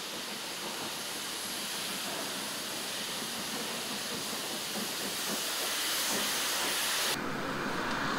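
Century-old coal-burning steam locomotive venting steam with a steady hiss. The hiss cuts off suddenly about seven seconds in, leaving a lower, duller noise.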